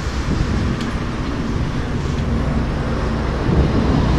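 Steady street traffic noise: a low rumble of passing and idling vehicles, with no single event standing out.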